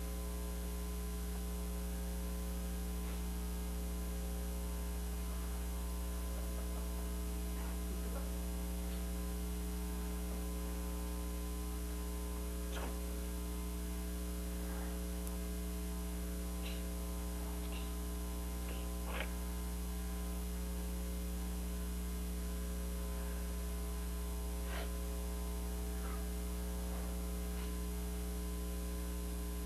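Steady low electrical mains hum in the recording, with a few faint scattered knocks about halfway through and near the end.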